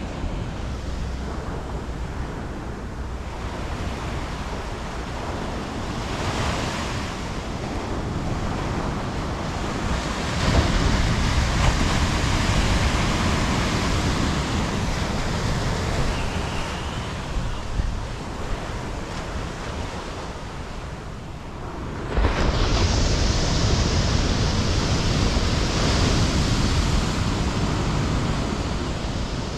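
Ocean surf breaking and washing up the beach, with wind buffeting the microphone. The surf swells louder about ten seconds in and again about twenty-two seconds in.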